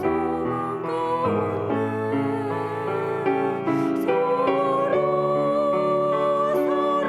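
Slow, tender hymn music: a woman singing with piano accompaniment, holding a long wavering note through the second half.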